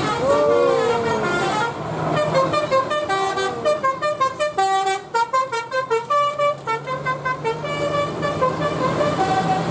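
Indonesian bus 'telolet basuri' musical horn playing a quick melody of short, stepped notes several times a second, over the bus's low engine hum. A swooping tone sounds in the first second or so before the melody starts.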